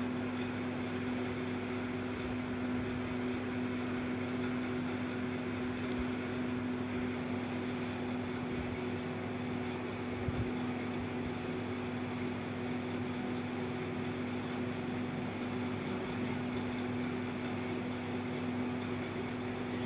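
A steady low mechanical hum with a fixed droning tone, unchanging in level.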